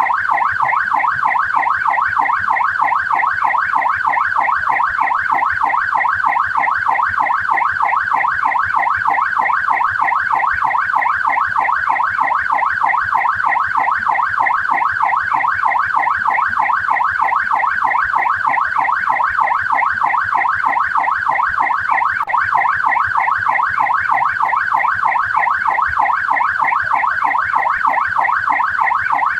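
Australian police siren in a fast yelp, its pitch sweeping up and down several times a second, steady and unbroken throughout.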